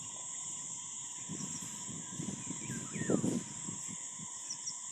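Steady high-pitched drone of insects, with a few brief bird chirps and some low rustling about halfway through.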